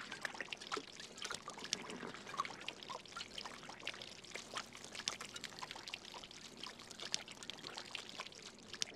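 Water pouring from a canteen into a man's open mouth and splashing over his face, a faint continuous trickle with many small irregular splatters.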